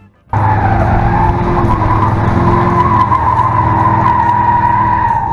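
Car tyres spinning against asphalt with a long, steady squeal over the engine running, starting suddenly about a third of a second in.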